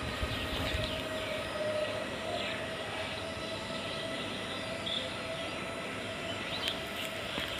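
Steady train noise: a continuous rumble and hiss with a held whine over it, unbroken throughout.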